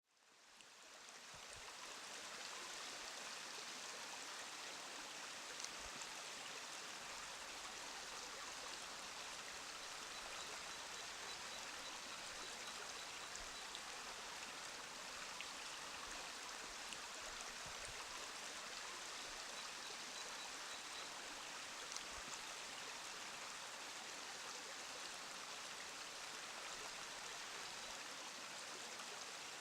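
Forest stream flowing steadily, an even rush of running water that fades in over the first two seconds.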